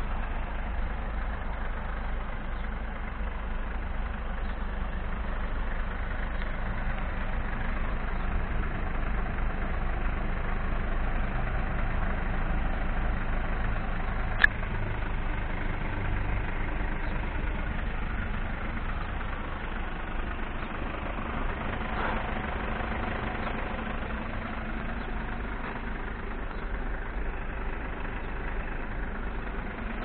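Mercedes-Benz Sprinter 514 CDI's four-cylinder diesel engine idling steadily, with a single sharp click about halfway through.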